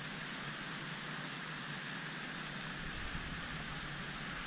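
Steady, even outdoor background hiss with no distinct sounds standing out.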